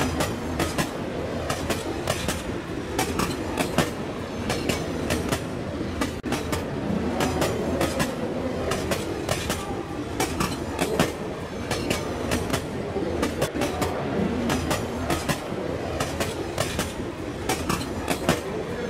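HO-scale model train rolling along the track, heard from a camera riding on one of its cars: a steady rolling noise with frequent, irregular sharp clicks from the wheels on the rails.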